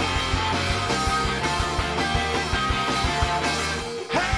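Live pop/rock band playing an instrumental stretch of a song: drums, electric guitars and bass. The band drops out for a moment near the end and comes straight back in.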